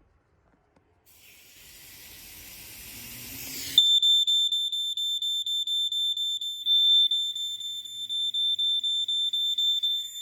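An aerosol smoke-test can sprays with a hiss that grows louder for a few seconds. About four seconds in, a smoke alarm's piezo horn sets off, answering the test smoke with a shrill, rapidly pulsing beep that keeps sounding.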